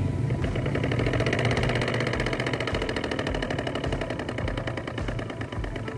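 Miniature Dongfeng-style hand-tractor diesel engine model running after being started, with a rapid, even chugging made to mimic a rice-field tractor diesel.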